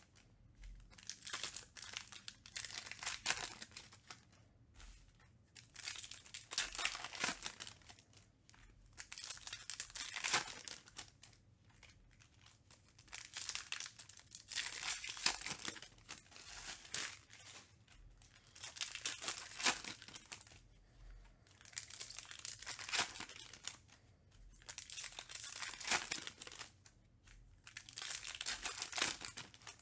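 Foil trading-card pack wrappers being torn open and crinkled by hand, in bursts of crackling every couple of seconds with short pauses between.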